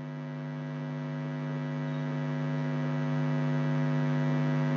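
Steady electrical mains hum picked up in the recording, with many overtones and slowly growing louder.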